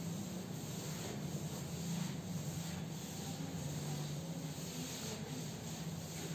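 Cloth duster being rubbed across a chalkboard in repeated wiping strokes, over a steady low hum.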